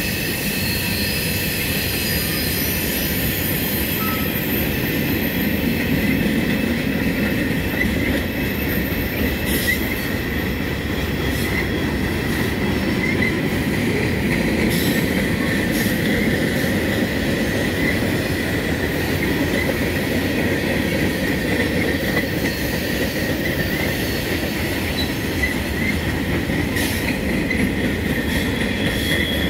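Freight train cars rolling past at close range: a steady rumble of steel wheels on rail, with a high, steady wheel squeal running over it.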